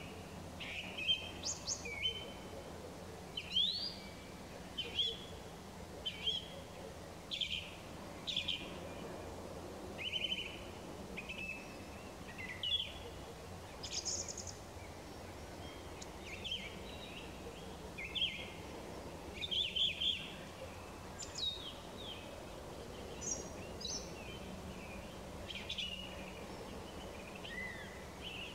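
Evening songbirds singing: short whistled and chirping phrases follow one another every second or so, over a faint steady low background rumble.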